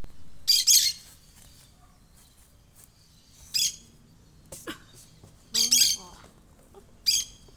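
Pet parakeets chirping in short, high-pitched bursts, four separate bursts a second or two apart.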